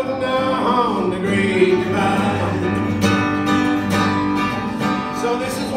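Acoustic guitar strummed steadily, with a man singing a country-folk song, holding and bending long notes near the start and again near the end.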